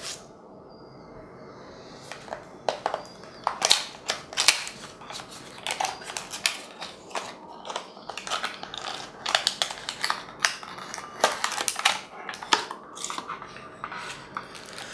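A cardboard earphone box and its clear plastic blister tray being opened and handled: irregular crackling and crinkling with many sharp clicks.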